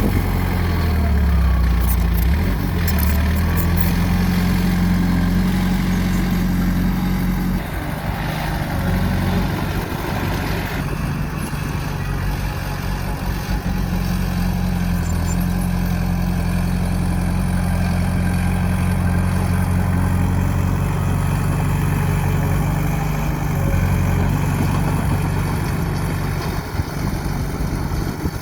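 Bulldozer's diesel engine running steadily, its note shifting about eight seconds in and again near twenty-three seconds.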